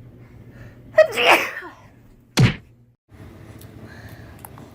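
A baby sneezing: a high-pitched sneeze about a second in, then a second short, sharp burst a little over a second later.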